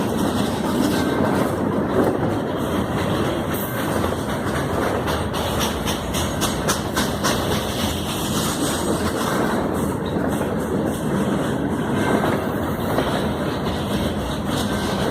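Cars of the Canadian Pacific freight train 293 rolling past, a steady rush of wheel and rail noise with many irregular clicks and clacks from the wheels over the rail joints.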